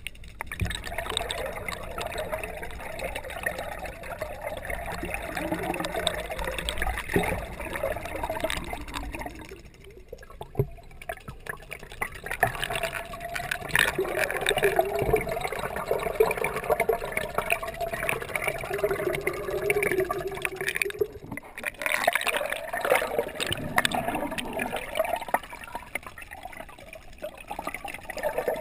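Water sloshing and gurgling, picked up by a camera held underwater in a swimming pool, so it sounds muffled. The sound is uneven and wavering, and it briefly drops away twice.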